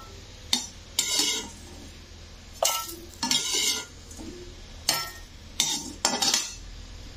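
A metal utensil scraping and clinking against a kadai among dry-roasted whole spices and coconut, in about seven short, irregular strokes: the spices are being stirred and scraped out once roasted.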